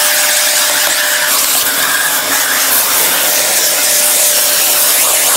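Canister vacuum cleaner running steadily, its hose nozzle drawn over the hoverboard's dirty deck: a loud rush of air with a faint steady whine.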